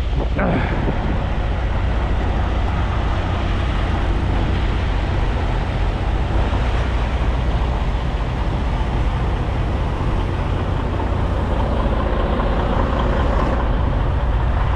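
Semi truck driving at road speed: a steady low engine drone under even tyre and road noise.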